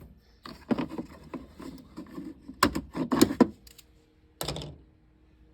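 Tools and plastic tool cases clicking and knocking as they are handled in a toolbox drawer, with a cluster of sharp clacks near the middle and one more knock about a second later.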